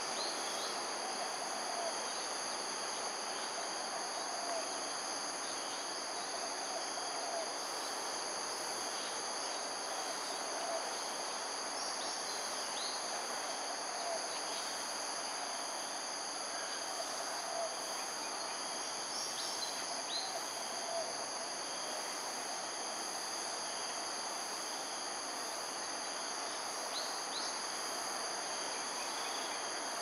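Steady insect chorus of several unbroken high-pitched drones over an even background hiss. Short low chirps repeat every two to three seconds until about two-thirds of the way through, with a few brief higher calls now and then.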